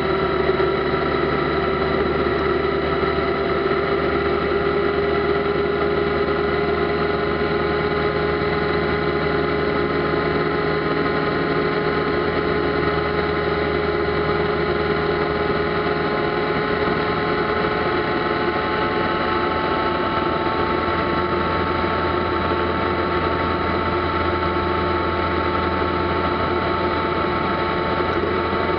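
Kawasaki ZZR1400's inline-four engine running steadily at cruising speed, heard from the rider's seat, its pitch holding nearly constant.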